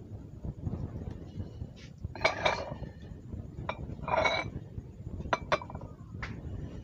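Clinks and scrapes of a stone and calamansi being handled on a ceramic plate: two louder ringing scrapes about two and four seconds in, then a few sharp clicks.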